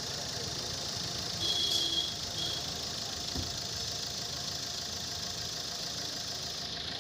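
A machine running steadily under a constant high hiss.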